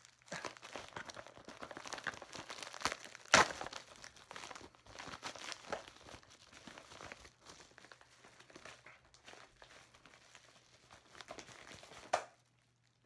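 A sealed mailer envelope being torn open by hand, its packing crumpled and crinkled. Continuous crackling with a few sharp rips, the loudest about three and a half seconds in and another near the end.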